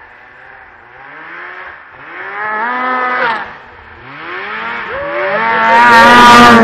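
2001 Arctic Cat ZR 800 snowmobile's two-stroke twin engine revving as the sled comes down the trail: the pitch climbs, drops when the throttle is let off about three seconds in, then climbs again as it accelerates past close by near the end, loudest then.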